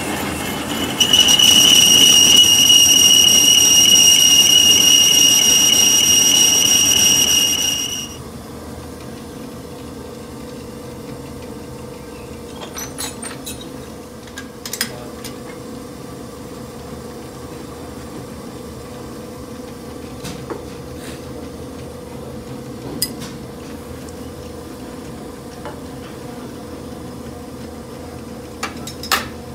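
Metal lathe boring tool cutting inside the bore of a spinning steel gear, with a loud, steady high-pitched squeal that stops about eight seconds in. After that, a steady low machine hum with a few sharp metallic clicks.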